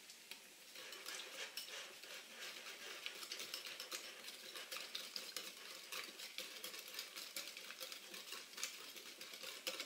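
Wire whisk beating a creamy yogurt and mayonnaise sauce in a small bowl: a faint, quick, steady ticking of the wires in the sauce and against the bowl, starting about a second in.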